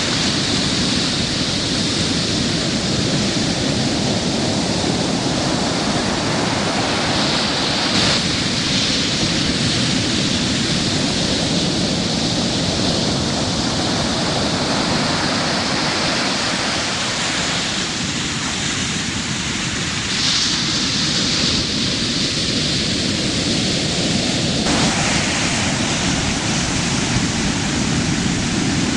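Heavy ocean surf breaking and foaming: a continuous loud rushing hiss that swells and shifts abruptly a few times.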